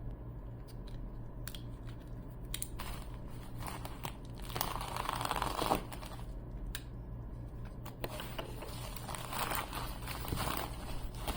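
A box and its packaging being opened and handled by hand: irregular rustling and crinkling with small clicks, loudest about five seconds in and again near the end.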